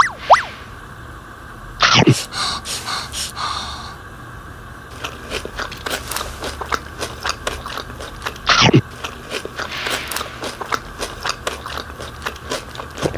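Crunchy chewing and biting: a long run of small crisp crunches, broken twice by a quick falling swoop.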